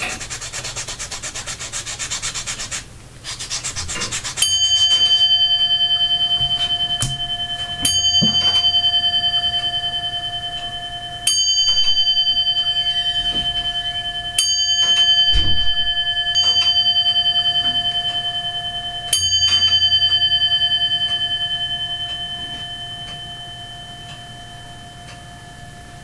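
About four seconds of close rubbing and scratching from hand work, then a bell struck five times, a few seconds apart, each stroke ringing on and slowly fading.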